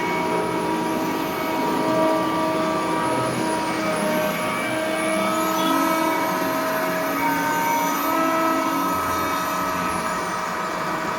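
Construction machinery engine running steadily during concrete pouring, a steady hum made of several tones that shift a little in pitch every few seconds, over a rushing noise.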